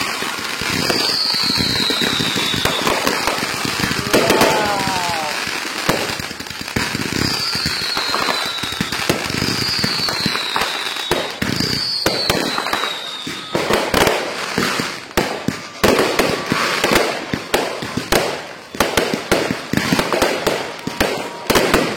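Fireworks going off: a dense crackling barrage with several short falling whistles, breaking into rapid sharp bangs and crackles over the second half.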